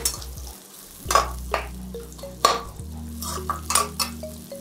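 Metal ladle scraping and knocking around a metal kadai as shallots are stirred and sautéed in hot oil, with frying sizzle underneath; a series of separate scrapes about every half second to a second.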